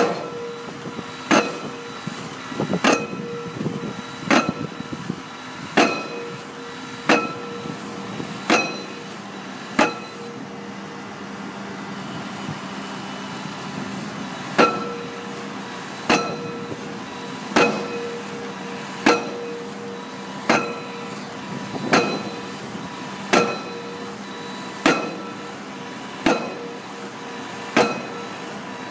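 Pile-driving hammer striking a pile in a steady rhythm, about one blow every one and a half seconds, each with a short metallic ring, over the steady hum of the rig's engine. The blows pause for about four seconds near the middle, then resume at the same pace.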